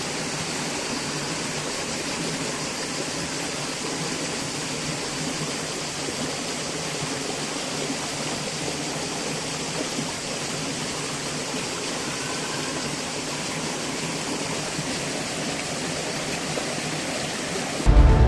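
Waterfall and stream water rushing steadily, an even hiss with no breaks. Music comes in suddenly near the end.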